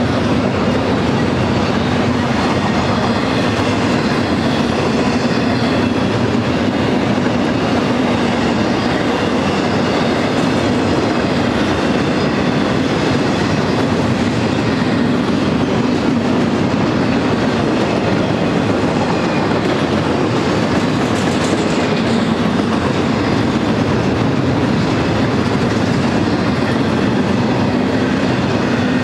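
Double-stack intermodal freight train rolling steadily past: the loaded well cars' wheels rumble and clatter on the rails.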